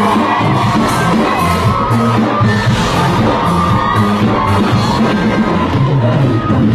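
Loud live K-pop music over a concert sound system, with a crowd of fans yelling and screaming along, recorded from the audience.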